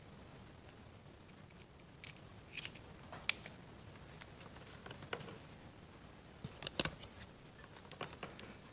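Light clicks and taps of small metal parts being handled: a dirt bike's throttle cable being fitted to a replacement carburettor. One sharp click about a third of the way in and a quick cluster of clicks about three-quarters through.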